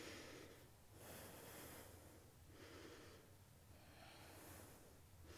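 Faint, slow breathing of a person holding a forward-fold leg stretch: several soft breaths in and out, each about a second long.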